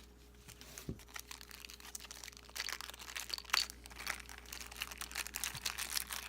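Crinkling and crackling of a plastic package being handled and opened, thin at first and busier from about halfway through.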